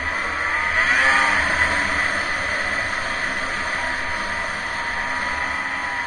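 Snowmobile engine running while riding, revving up about a second in and then holding a steady pitch, heard muffled through an action camera's waterproof case.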